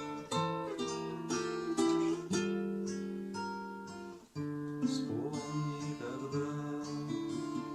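Acoustic guitar strumming and picking chords, with a brief break about four seconds in before the chords pick up again.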